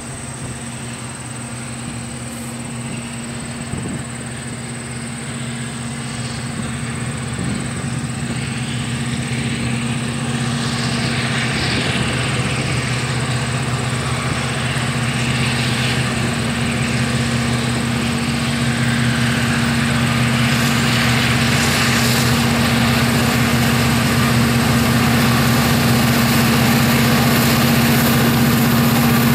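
Two EMD SD40-2T 'tunnel motor' diesel locomotives, each with a turbocharged V16 two-stroke engine, working at the head of a freight train. The sound is a steady low engine drone with a hiss above it, and it grows steadily louder as the locomotives approach.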